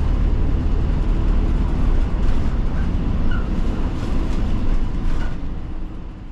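Cabin noise of a route bus on the move: a steady low engine and road rumble with road hiss, which eases off and grows quieter near the end.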